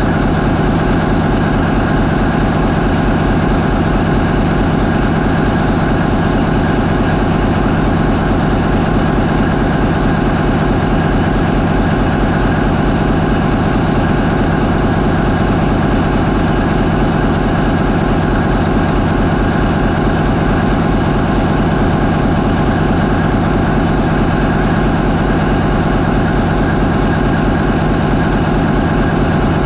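MAN 20V28/33D STC marine main engine, a 20-cylinder V diesel, running steadily at 550 RPM. It is a constant, even, low-pitched engine note with no change in speed or load.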